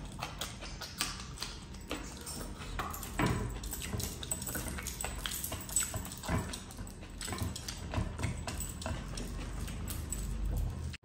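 Close-up eating sounds: chewing with wet mouth smacks, and fingers squishing and mixing rice into chicken curry on a plate. The sounds come as a string of short, irregular wet clicks.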